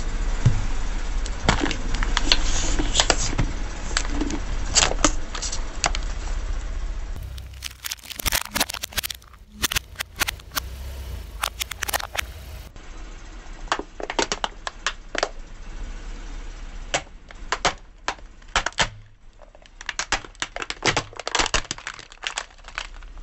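A car tyre crushing plastic Play-Doh tubs and then plastic toy jet skis: a long series of sharp cracks and snaps of breaking plastic. For about the first seven seconds a car engine idles low under the cracking.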